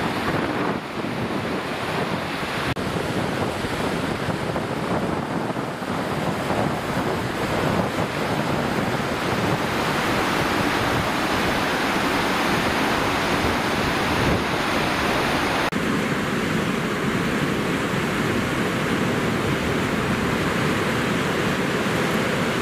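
Steady rush of the swollen River Irwell in flood, fast brown water running high, with wind blowing on the microphone. The rushing changes in character a few times across the stretch.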